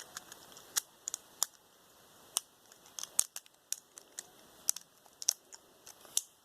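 Plastic Lego pieces clicking and tapping as they are handled and pressed onto a build: a string of irregular sharp clicks.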